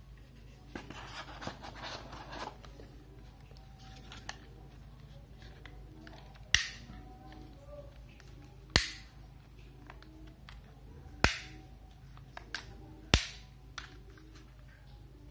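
Handling rustle, then four sharp plastic snaps a couple of seconds apart, with a few lighter clicks between, as the drone's remote controller and its phone clamp are handled. A steady low hum sits underneath.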